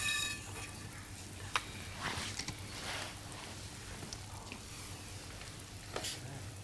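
A single sharp clink that rings briefly, as chopsticks are set down against a stoneware serving plate, then a faint crackling hiss with a couple of light clicks.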